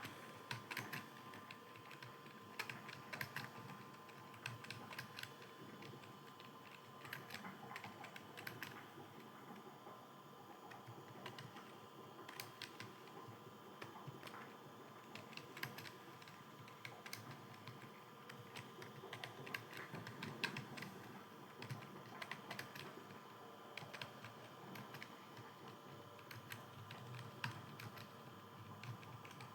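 Computer keyboard typed on continuously in quick, irregular runs of key clicks, with short pauses between the runs.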